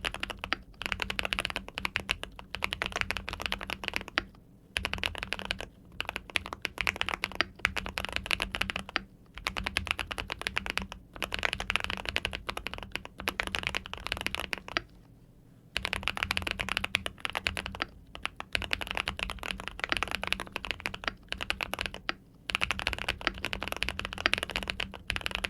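Rapid typing on a Keychron custom mechanical keyboard fitted with fully lubricated Winter Bonfire switches: a dense stream of keystroke clacks in runs of a few seconds, broken by short pauses.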